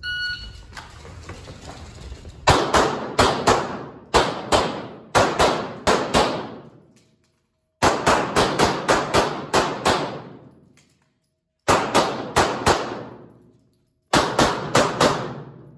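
A shot-timer start beep, then a Glock 26 9mm pistol firing in quick strings of several shots, six strings with short pauses between them as the shooter moves between positions. Each shot rings on in the echo of the concrete-block indoor range.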